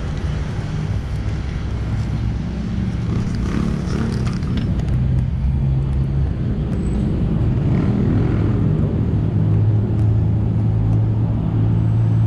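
Steady low drone of a motor vehicle's engine running nearby, shifting slightly in pitch, with a few faint clicks.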